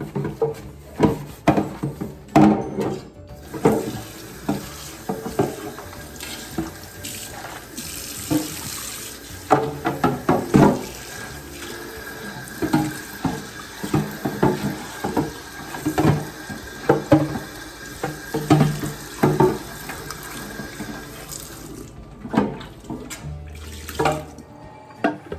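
Kitchen tap running into a sink, shutting off a few seconds before the end, with repeated knocks and clatter of items being handled and washed under it.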